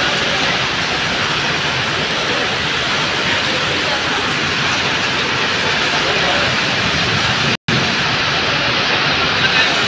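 Heavy rain pouring steadily, a dense even hiss of downpour. It cuts out for a moment about seven and a half seconds in.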